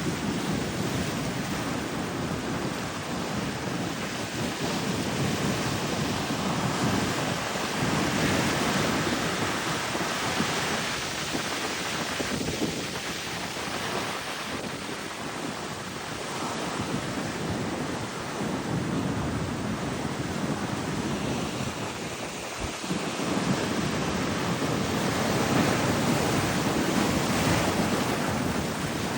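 Ocean surf breaking and washing up the beach, its level swelling and easing with each wave, with wind rumbling on the microphone.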